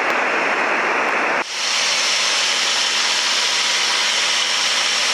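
Steady cabin noise of a Cessna light airplane in cruise flight: engine and airflow noise. About a second and a half in it changes abruptly from a dull rushing noise to a thinner, brighter hiss.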